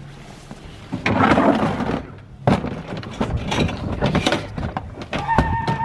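Knocks and clatter of a plastic pet carrier being handled on concrete, after a rustling scuffle about a second in. A brief steady high tone sounds near the end.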